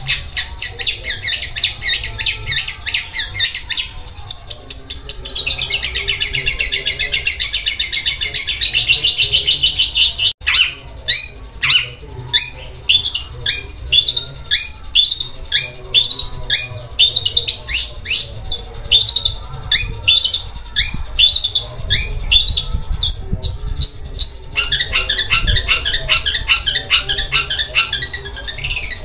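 Long-tailed shrike singing a harsh, rough chatter like a sewing machine: fast repeated high notes, several a second, running together into a dense continuous rattle midway, with a brief break about ten seconds in.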